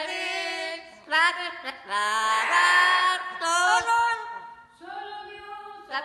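Yellow-crowned amazon parrot singing in a person-like voice: about five wavering sung phrases with gliding pitch and short breaks between them, loudest around the middle.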